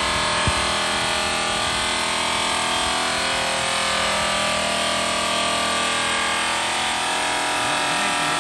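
Electric rotary polisher running steadily with its buffing pad against the aluminum of a pontoon tube, a continuous motor whine over a dense rushing noise, with a brief knock about half a second in.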